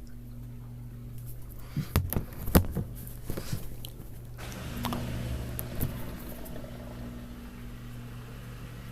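Samsung Grande washing machine running its rinse cycle: a steady low motor hum, with a cluster of sharp knocks and a hiss between about two and four seconds in.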